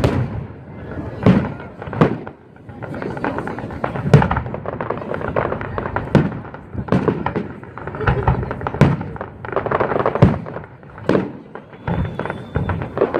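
Aerial fireworks display: about ten loud shell bursts at irregular intervals, with crackling between them.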